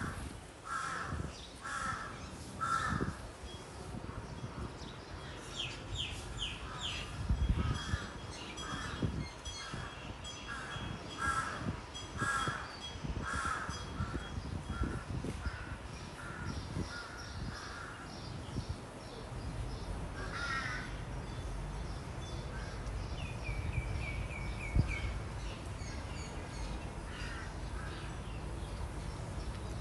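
Crows cawing in runs of repeated calls, about one to two a second, with a few higher-pitched calls from other birds among them.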